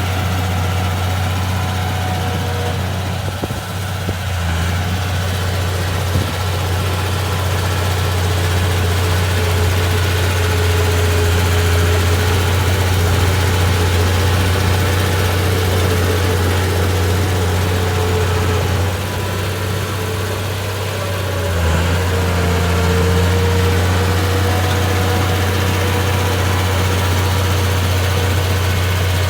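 Bulldozer's diesel engine running steadily with a deep, even hum; its level dips for a couple of seconds about 19 seconds in and comes back up about 22 seconds in.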